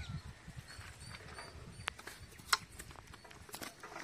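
Boiled noodles being tipped out of a metal colander onto a metal plate: a few sharp metallic clinks and taps, the loudest about two and a half seconds in.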